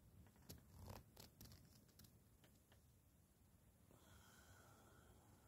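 Near silence: a few faint clicks and rustles of handling in the first three seconds, then a faint steady high tone from about four seconds in.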